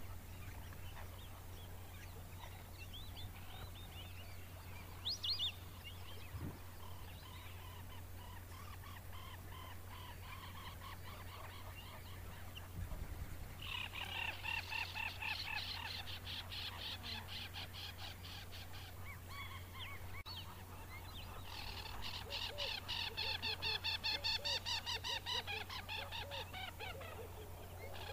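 African jacana calling: two long bouts of fast, repeated nasal notes, the first starting about halfway in and the second, louder, a few seconds later. Fainter scattered calls come before them, over a steady low hum.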